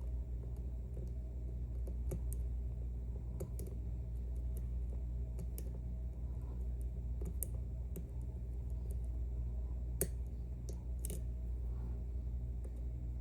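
Lock pick and tension wrench working the sliders of an Ezcurra Sea 23 slider lock: scattered small irregular clicks and ticks of metal on metal as the sliders are felt for binding, the sharpest about ten seconds in, over a steady low hum.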